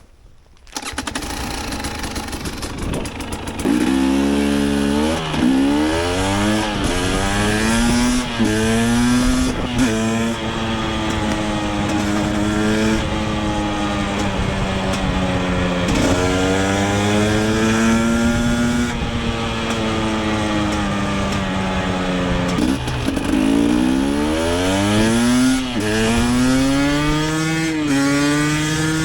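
KTM 250 EXC TPI's single-cylinder two-stroke engine being ridden hard through the gears: revs climb quickly and drop back at each upshift several times, then hold at a steadier speed with slow rises and falls, before another run of quick upshifts near the end.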